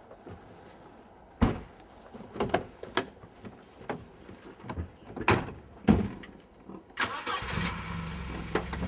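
Several irregular knocks and thumps, then about seven seconds in a car engine starts and settles into a steady idle.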